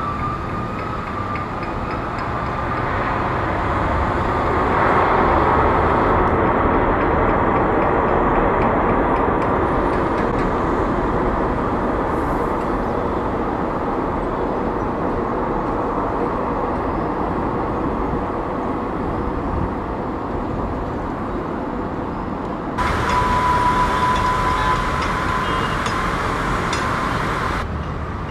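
Boeing 787-9 jet engines running as the airliner touches down and rolls out on the runway, a steady rumble that grows louder about four seconds in and then eases. About 23 seconds in the sound switches abruptly to another jet's engines, with a steady high whine over the noise.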